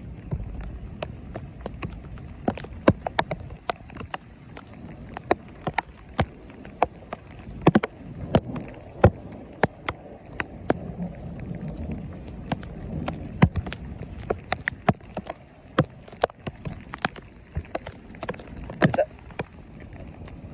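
Thunderstorm rain: big drops tapping close to the microphone, several a second at irregular intervals, over a steady low rumble.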